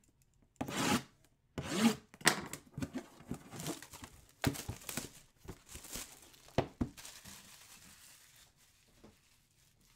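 Wrapping being torn and crinkled off a cardboard jersey box by hand: a run of separate tearing strokes with a few sharp knocks, then a softer rustle that fades out.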